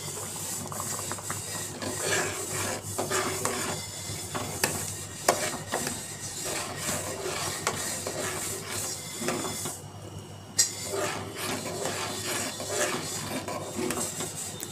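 A metal spatula stirring and scraping around a metal saucepan of milk oats thickening on a medium flame: a run of irregular scrapes and clicks, with a short pause about ten seconds in that ends in a sharp click.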